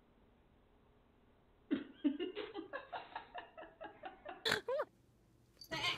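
A woman laughing in quick, breathy bursts, starting about two seconds in, followed near the end by a short sharp sound.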